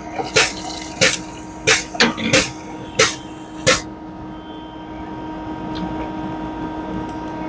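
A series of sharp clicks, about three every two seconds, that stop about four seconds in, over the steady hum of a running FBD frozen-beverage (Slurpee) machine.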